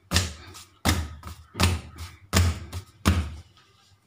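Hands beating a freshly cooked thread parotta (nool porotta) against a stone countertop to loosen its layers into strands: five dull thuds, about one every three quarters of a second.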